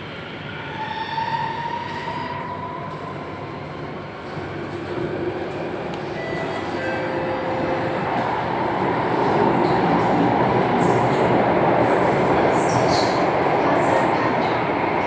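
Singapore MRT train running, with electric motor whine in gliding tones over the first few seconds, then wheel and track noise growing louder and holding steady.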